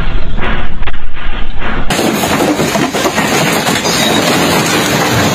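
Earthquake shaking on two clips: first a heavy low rumble with rattling, then, about two seconds in, a sudden switch to loud continuous rattling and clattering of shelves and bottles as a shop shakes.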